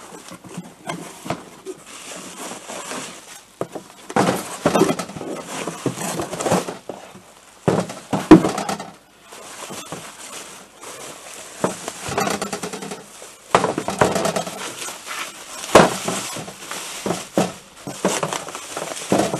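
Bubble wrap and plastic packing rustling and crinkling as wrapped moped side covers are lifted out of a cardboard box and unwrapped, with occasional knocks of the parts and box on the table; the sharpest knock comes about eight seconds in.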